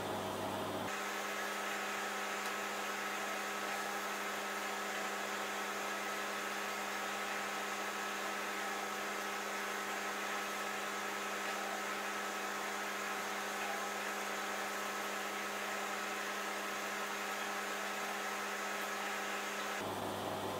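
Steady electrical hum over a faint hiss: room tone, with no distinct events. The low part of the hum drops away about a second in and returns near the end.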